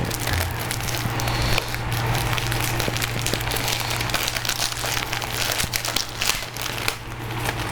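Close-up crinkling and crackling of wrapping being handled, in dense irregular little clicks over a steady low hum.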